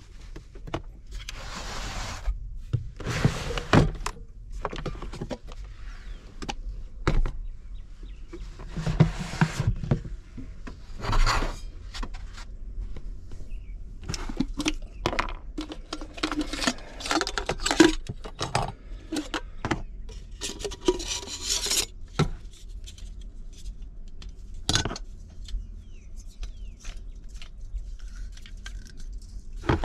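Camping gear being handled in a small enclosed truck-bed space: rustling of bags and cloth with scattered knocks, clinks and clatters of hard items being picked up and set down, among them a Jetboil stove and its fuel canister.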